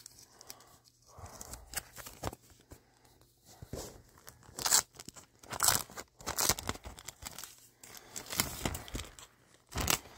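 A wrapper around a pack of postcards being torn open and handled: irregular crinkling and rustling, with a few louder short rips.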